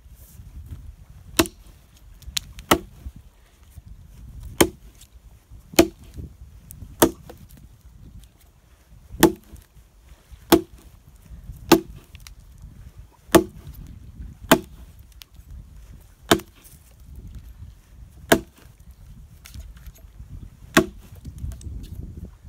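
A short-handled axe chopping into a dry log, about thirteen sharp strikes at an unhurried pace, one every second or two, cutting a notch.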